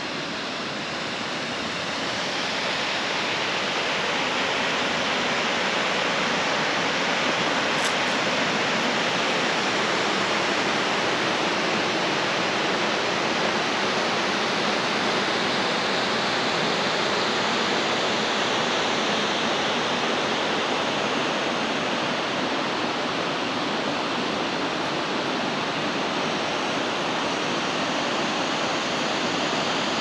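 Steady rush of a 70-foot waterfall, growing a little louder over the first couple of seconds.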